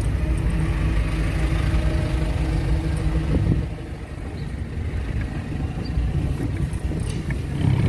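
Car engine and road noise heard from inside the cabin while driving slowly through town streets, a steady low rumble that dips briefly a little before halfway.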